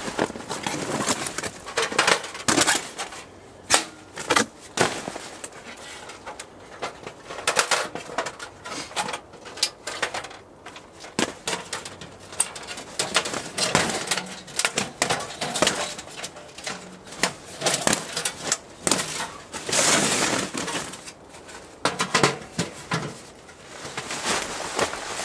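Folding sheet-metal wood stove being unfolded and assembled: irregular clinks, clanks and knocks of thin metal panels, with some rustling between them.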